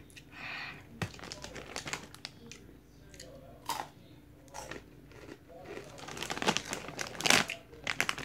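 A bag of Takis rolled tortilla chips crinkling as it is handled, with scattered crunches as the chips are eaten. The crackling gets louder and busier near the end.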